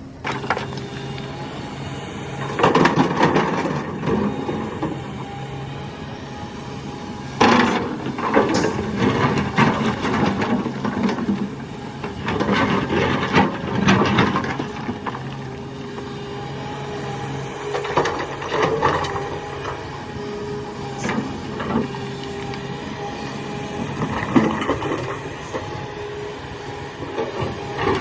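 Kobelco excavator's diesel engine running steadily. About five bouts of rock scraping and clattering in the bucket break in as it digs, the loudest near the start and in the middle.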